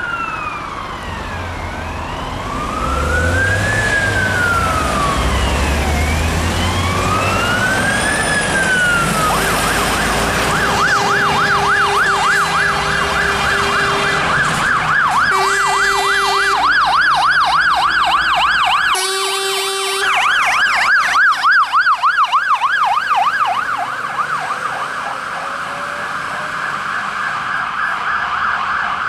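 Fire engine sirens passing: a slow rising-and-falling wail, then from about ten seconds a fast warble, broken by two short horn blasts around the middle. A heavy vehicle's engine rumbles during the first part.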